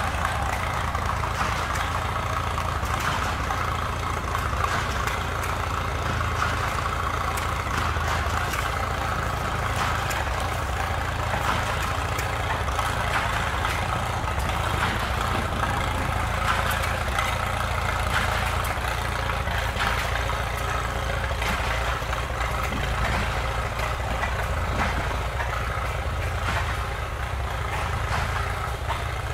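An engine idling steadily, with an even low beat.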